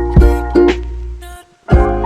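Background music: a plucked-string tune over a steady bass and a regular beat, briefly dropping out about a second and a half in.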